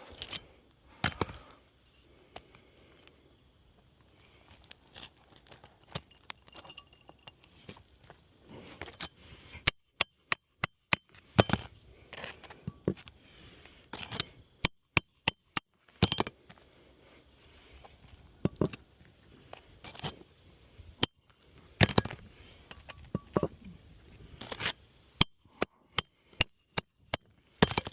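Hammer driving roofing nails through shingles: quick runs of several sharp metallic taps, with scattered single knocks between.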